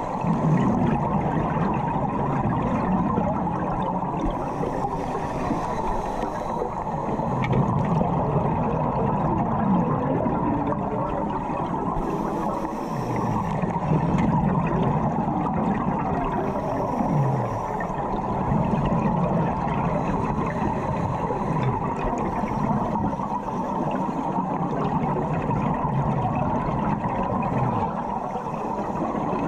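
Muffled underwater sound through a camera housing: a steady rush of water, with a scuba diver's exhaled bubbles gurgling every few seconds.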